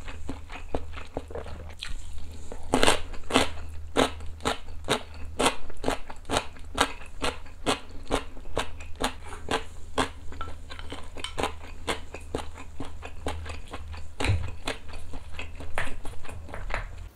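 Close-up crunching of a mouthful of kkakdugi (cubed radish kimchi) being chewed, about three crisp crunches a second. A steady low hum runs underneath.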